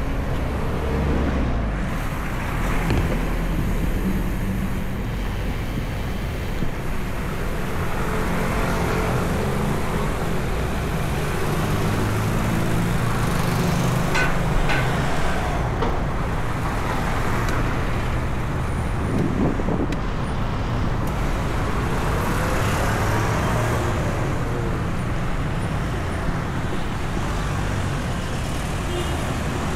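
Steady engine and road noise of a vehicle driving through city traffic.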